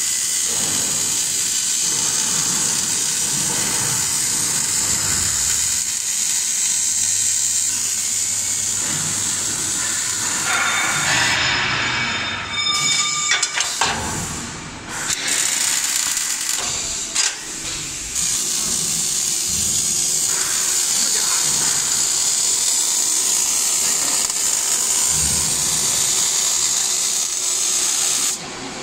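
Arc welding torches of an automatic seam welding machine welding steel rods, a loud steady hissing crackle. The arc breaks off for a few seconds about midway, with some machine tones, then resumes and cuts out just before the end.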